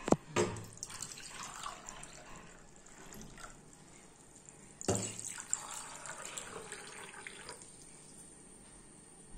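Water poured from a glass bowl into a small drinking glass for about two and a half seconds, then, about five seconds in, into a second glass for another two and a half seconds. A light knock comes just before the first pour.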